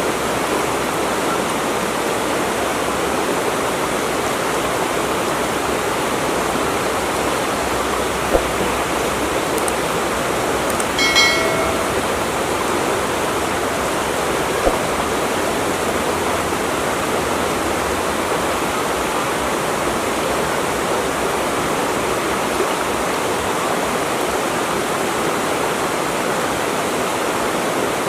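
Steady rushing of flowing water, as from a stream or small waterfall. A short pitched sound cuts through about eleven seconds in.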